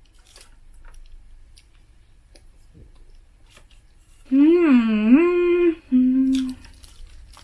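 A woman humming "mmm" with her mouth closed about four seconds in, a short wavering phrase that dips and rises, then a brief held note. Before it, only faint small clicks and taps from eating.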